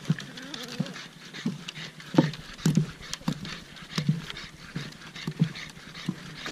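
Footsteps knocking on wooden boardwalk planks, about one and a half steps a second, with a pug panting hard alongside.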